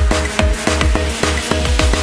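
Electronic background music with a fast drum beat and heavy bass.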